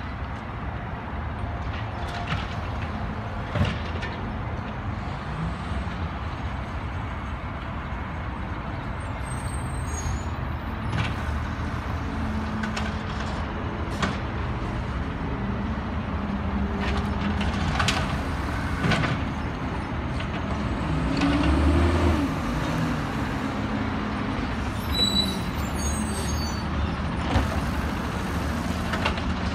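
Peterbilt 320 automated side-loader garbage truck running and creeping along, its engine revving up for a few seconds about two-thirds of the way through as the lift arm works. Scattered knocks and bangs from carts being lifted and dumped, and short hisses of air brakes.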